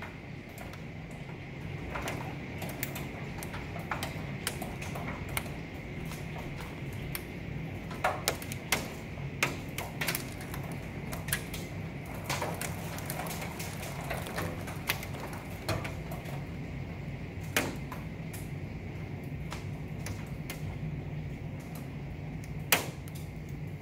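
Torrential rain on a window pane, heard from inside: a steady hiss with irregular sharp ticks of hailstones striking the glass, a few louder ones about eight to ten seconds in and again near the end, over a steady low hum.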